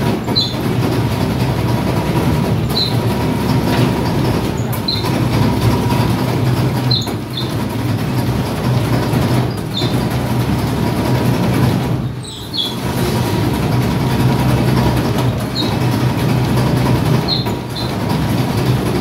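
Motor-driven dough roller (dough brake) running steadily as dough is worked through its rollers, with a short high squeak about every two seconds.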